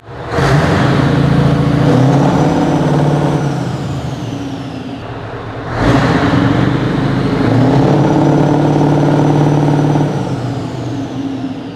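Scania T143M's 14-litre, 450 hp V8 diesel revved hard twice through its vertical exhaust stacks inside a large workshop. Each rev comes up sharply, holds for a few seconds, then drops back: the first at the start, the second just before halfway.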